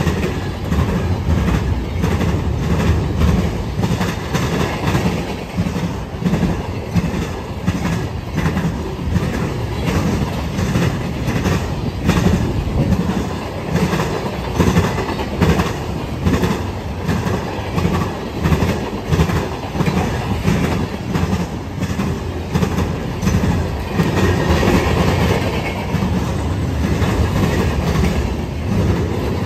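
Freight train rolling past, its steel wheels clacking over rail joints in a continual string of clicks over a low, heavy rumble.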